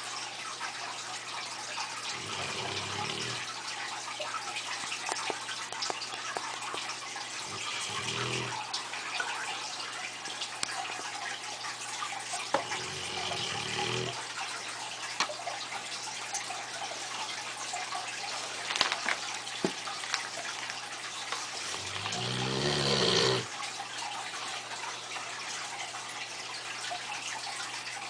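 Neapolitan Mastiff snoring in his sleep: four slow, low snores several seconds apart, the last one near the end the longest and loudest, swelling before it stops. A steady hiss runs underneath.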